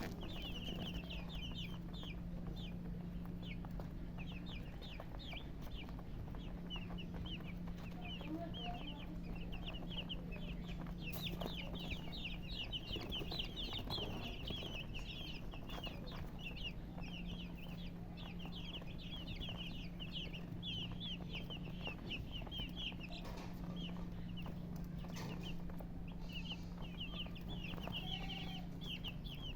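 A group of baby chicks peeping continuously, many short high peeps overlapping in rapid succession, with brief lulls, over a low steady hum.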